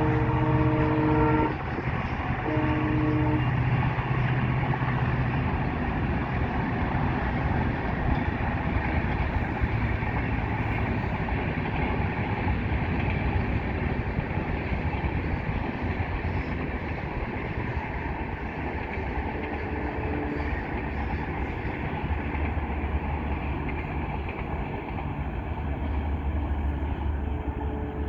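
EMD diesel locomotive's horn sounding several tones at once, cutting off about a second and a half in, then one short second blast. After that the train runs past with a steady rumble and rail noise.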